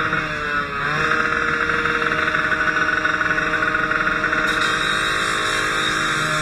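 Engine running steadily with a rushing noise over it; its pitch dips briefly just under a second in.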